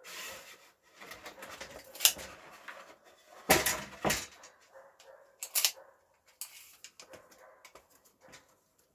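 Handling noise on pine boards as a line is measured and marked in pencil: rubbing and brushing of hand and pencil across the wood, with a few sharp knocks and scrapes, the loudest a little past the middle.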